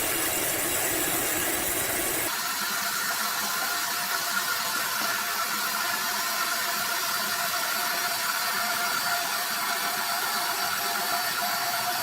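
Sawmill machinery running steadily, a continuous mechanical noise with a high steady whine; the sound changes abruptly about two seconds in.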